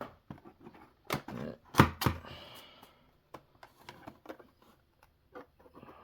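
Plastic toy packaging being handled and pulled apart: scattered clicks, knocks and crinkles, loudest in the first three seconds, then lighter ticks.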